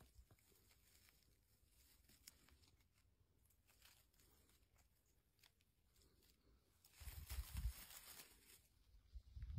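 Mostly near silence with faint ticks, then a hand brushing through blueberry undergrowth and moss gives a louder rustle and crackle for about a second and a half, starting about seven seconds in, with a brief one again near the end.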